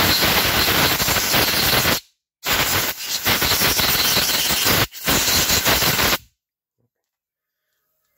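Compressed-air blow gun hissing in three long, loud blasts, the last one shorter, blowing a motorcycle stepper-motor housing dry after cleaning it.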